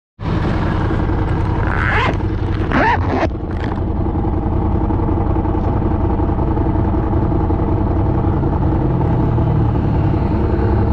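A motor vehicle's engine running at a steady speed under a low road rumble, with a few brief higher sliding sounds about two to three seconds in.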